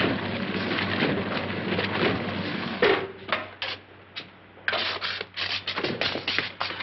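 Old electric washing machine running with a rapid mechanical clatter that stops about three seconds in. A few scattered knocks follow, then a short quiet stretch, and a dense clatter starts again a little before the end.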